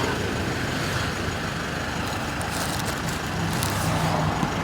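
Steady road traffic noise with a motor vehicle engine running, its low hum growing a little louder near the end, and a few faint clicks.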